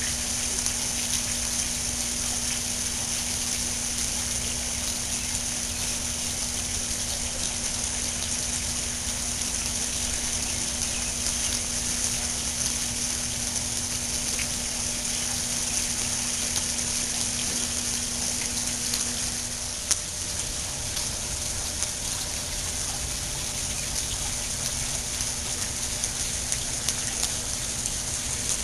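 Fountain water splashing steadily into its pool, a continuous hiss. A faint steady hum stops about twenty seconds in, with a single click at that moment.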